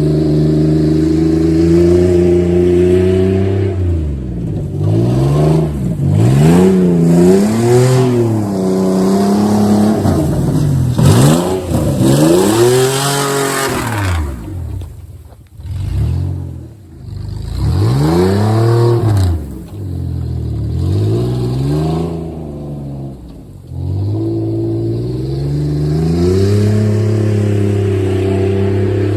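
A vehicle engine revving up and down over and over, its pitch rising and falling every second or two, with a few brief drops in between.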